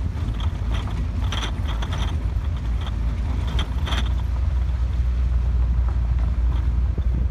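Vehicle driving along a bumpy dirt road: a steady low rumble, with scattered rattles and creaks in the first few seconds as it goes over the rough surface.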